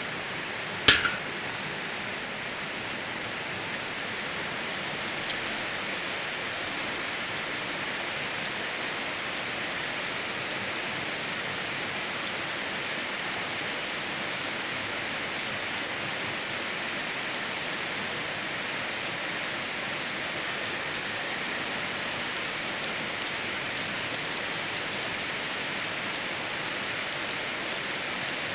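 Steady water noise, an even hiss that holds level throughout, with one sharp click about a second in.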